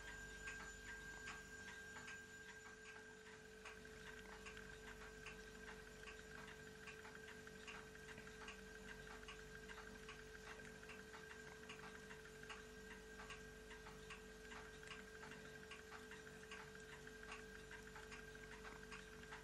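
Faint, even clicking, several clicks a second, from the mechanism of a sectioned Wilesco D16 toy steam engine as its flywheel is turned by hand, with the piston and valve gear moving. A faint steady hum runs underneath.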